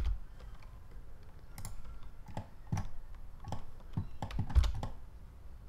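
Computer keyboard keys pressed one at a time: about seven separate, unevenly spaced clicks, beginning about a second and a half in after a quiet opening.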